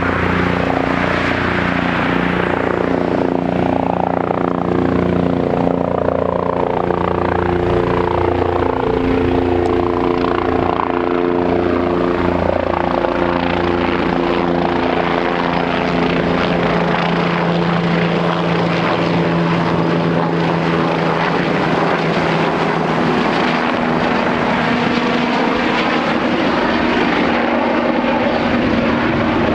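Police helicopter flying low overhead: the steady sound of its four-bladed rotor and engine. The tones drop in pitch about a third of the way through as it passes and heads away.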